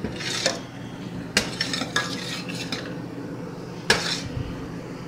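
A metal spoon stirring thick chocolate syrup in a stainless steel saucepan, scraping and knocking against the pot with a few sharp clinks. The loudest clink comes about four seconds in.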